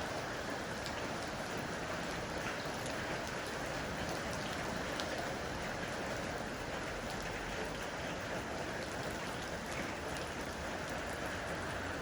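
Heavy rain falling steadily on an LG air conditioner unit: an even hiss with many separate drops ticking.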